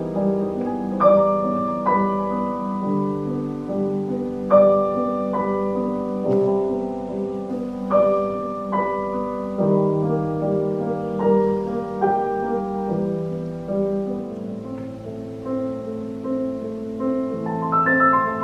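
Grand piano played solo in a slow classical style, struck notes and chords left to ring and overlap. The playing grows busier near the end, with higher notes.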